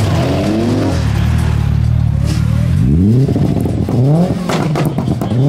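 Car engine revving in short blips: the revs fall back to a steady idle about a second in, then three quick rev blips each sweep sharply up in pitch, with a few sharp cracks between the later blips.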